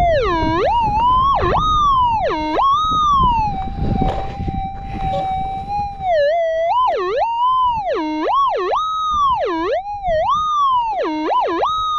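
Minelab GPZ 7000 gold detector's steady threshold tone, broken by repeated warbling swings in pitch, dipping low and rising high, as the coil is swept back and forth over a buried target. The tone steadies for a couple of seconds in the middle before the swings resume. The detectorist judges the target probably a bullet rather than gold.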